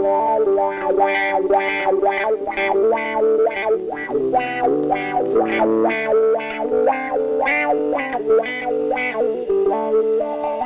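Background music: a picked guitar plucking notes at about three or four a second over held chords.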